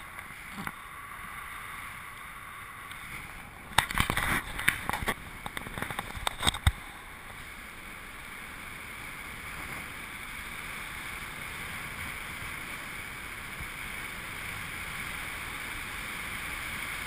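Airflow rushing over an action camera's microphone in paraglider flight, a steady hiss. Between about four and seven seconds comes a burst of loud knocks and bumps.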